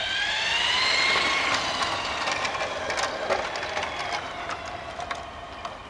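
Playmobil battery-powered G-scale toy train passing close on its track: a pitched motor whine rising for about a second and a half, then a run of light clicks from the wheels on the rails, fading as the train moves away.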